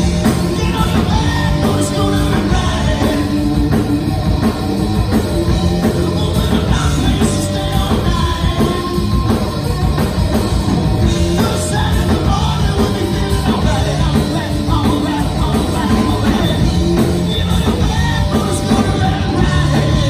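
Rock band playing a loud, steady song with a sung lead vocal over the band.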